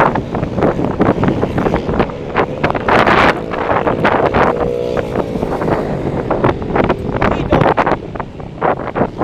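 Heavy wind buffeting on the microphone over the running engines of 125 cc four-stroke racing motorcycles. An engine's pitch shows through the wind about halfway.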